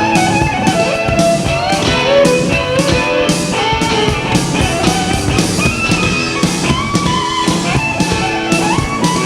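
Rock band playing an instrumental break between sung verses: drum kit, bass and guitar under a gliding lead melody.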